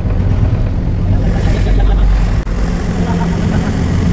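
Loaded lorry's diesel engine and road noise heard from inside the cab while cruising on a highway: a steady low rumble, with a brief dropout about two and a half seconds in.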